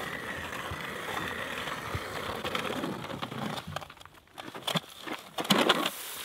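A hand-cranked ice auger grinding steadily as it bores through lake ice. Near the end the grinding breaks into a few louder scraping crunches as the auger is pulled up and the ice shavings spill out of the hole.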